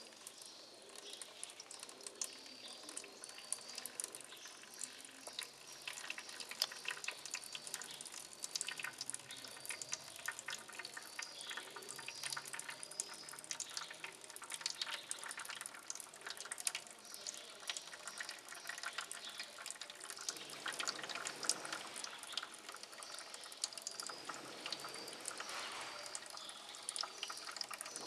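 Liquid squirted from a plastic syringe into a paper-lined funnel, splashing and dripping through the filter, with a denser splashing a few seconds before the end. A short high chirp repeats about once a second during the first half.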